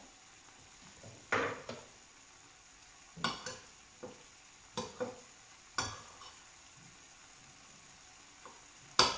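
A handful of short clinks and knocks of kitchen utensils and dishes being handled, spread out at uneven intervals over a low, steady kitchen background.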